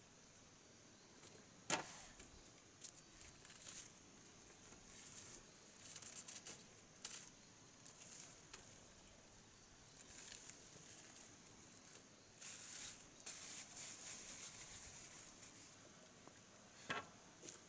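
Quiet handling of a bamboo slat platform: faint rustling and scraping, with a sharp knock about two seconds in and another near the end as the slats are handled and stepped on.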